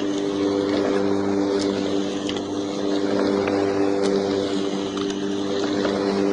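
Electric lawn mower running at a steady speed: an even motor hum at one unchanging pitch over the rush of the spinning blade, with a few faint ticks.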